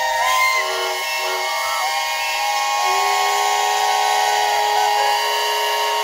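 Steam whistles on a line-up of traction engines and steam rollers all blowing at once: a chorus of many overlapping steady notes at different pitches, with single whistles dropping out and coming back in.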